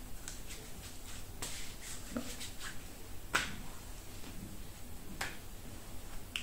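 Hands working oily body cream between the palms and onto the face: quiet, scattered sticky clicks and smacks of skin, the sharpest about three and a half seconds in.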